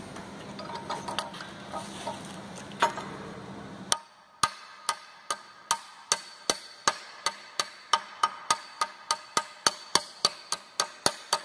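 Chipping hammer striking a freshly arc-welded steel bead to knock off the flux slag: sharp metallic taps with a short ring. After scattered clicks and knocks, the steady hammering starts about four seconds in and speeds up from about two to about four blows a second.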